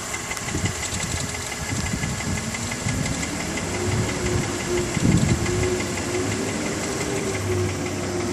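BMW M54 2.5-litre inline-six idling warm, with a fast, light ticking from the front of the engine that shows only at idle. Low rumbling thumps come and go through the middle, loudest about five seconds in, and a steady tone joins about four seconds in.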